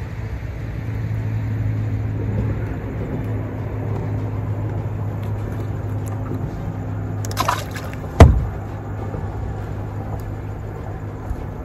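A steady low motor hum, with a short rushing splash about seven and a half seconds in and then a single sharp knock, the loudest sound.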